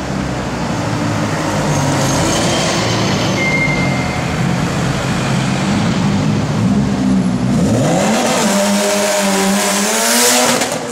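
City street traffic, then a 1999 Mitsubishi Lancer Evolution VI's turbocharged four-cylinder accelerating hard about eight seconds in. Its engine note climbs sharply and is then held as it passes close, with a loud rush of exhaust at the peak near the end.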